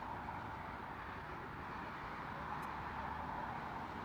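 Steady rushing noise of distant jet engines, an even hiss centred in the mid range over a low rumble.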